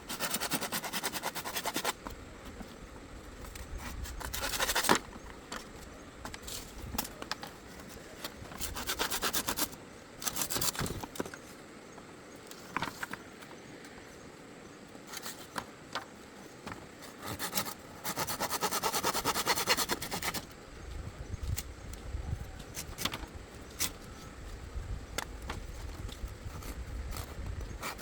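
Rasping, rubbing strokes on a hard surface in several bursts of one to two seconds, with scattered sharp clicks and knocks between them.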